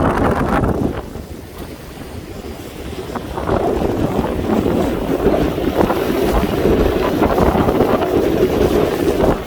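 Gale-force wind buffeting the microphone over choppy harbour water. The gusts ease about a second in and build up again from about three and a half seconds.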